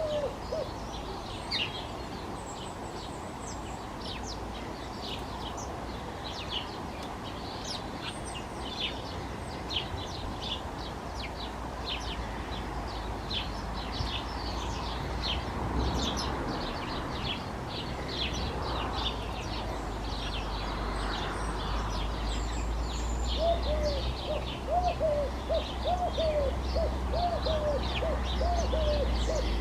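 House sparrows chirping continuously in a busy chorus. A collared dove coos in a run of low repeated notes right at the start and again through the last six seconds or so. A low rumble underneath grows louder in the second half.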